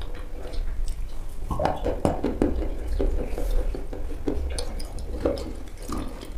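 A metal spoon stirring and scooping a thick, wet chalk paste in a plastic bowl, with wet, squelching mouth sounds of eating it. The sounds come as irregular clicks and short wet squishes.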